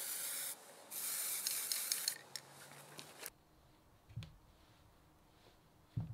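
Two short bursts of hissing spray, the first about half a second long and the second about a second, the second with faint ticks in it. Two soft low knocks follow later.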